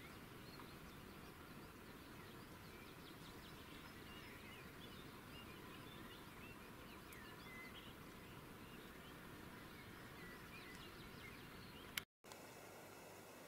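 Faint, scattered twittering and chirping of small songbirds over a steady background hiss, with one sharp click near the end.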